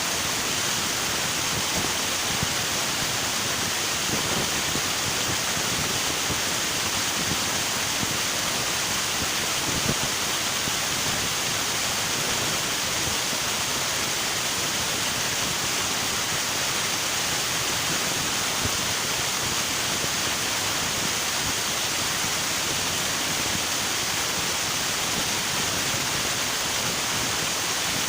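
River water rushing steadily over rocks: an even, continuous rushing hiss with no change in level.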